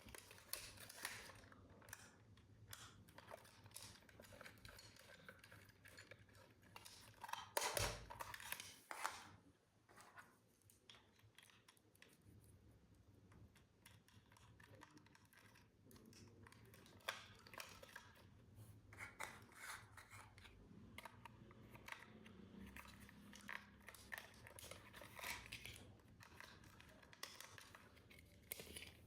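Faint unpacking and handling noises: scattered clicks, crackles and rustles, with a louder rustling stretch about eight seconds in.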